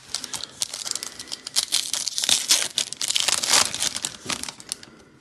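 Foil wrapper of an Optic basketball card pack crinkling and tearing as it is ripped open by hand, a dense crackle that is loudest in the middle.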